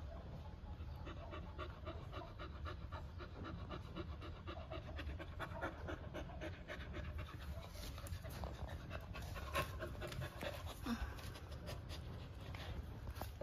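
Yellow Labrador puppy panting steadily, with quick, even breaths in and out through its open mouth.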